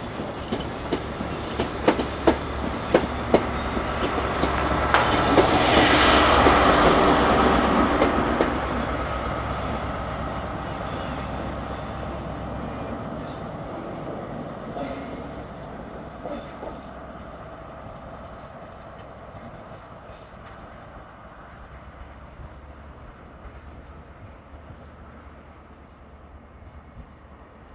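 A GWR High Speed Train running past and away: its wheels clack over rail joints in a quick rhythm for the first few seconds, the sound swells to its loudest about six seconds in as the rear Class 43 diesel power car goes by, then fades steadily as the train recedes.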